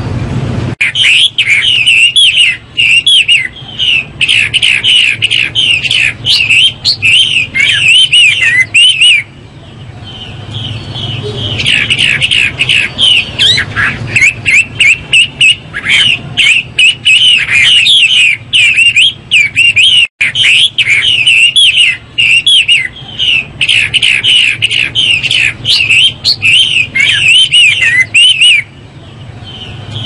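Chinese hwamei (Garrulax canorus) singing loudly: long runs of rapid, varied whistled notes, broken by a pause of about two seconds about nine seconds in and another near the end.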